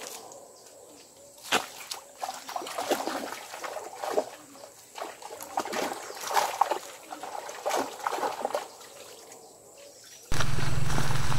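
Splashing and sloshing in shallow river water at the bank, in irregular bursts, as a man works with his hands in the water. About ten seconds in, it cuts abruptly to a steady, much louder rumbling noise.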